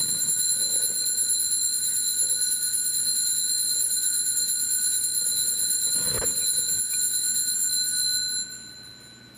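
Altar bells shaken continuously at the elevation of the consecrated host, a steady bright ringing that stops about eight and a half seconds in and dies away.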